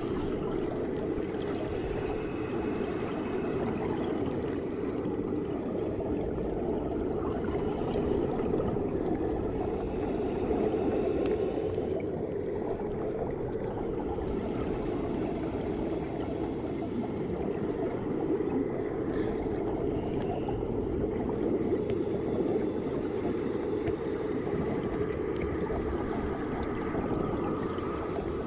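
Steady, muffled rushing noise of underwater pool ambience, picked up by a microphone under the water.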